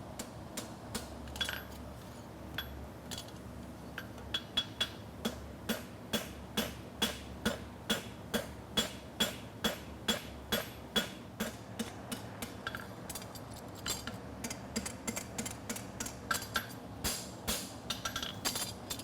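Farrier's hammer striking a steel horseshoe on an anvil: a few scattered blows, then steady strikes about two a second, each with a short metallic ring. A steady low buzz from an evaporative cooler fan runs underneath.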